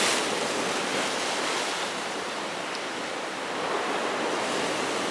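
Ocean surf breaking and washing over a rocky shoreline: a steady rush of whitewater, a little louder just at the start.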